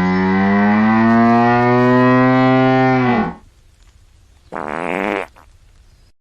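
Hippopotamus calling: a long, low, droning bellow that rises slightly in pitch and breaks off about three seconds in, then a second, shorter call near the end.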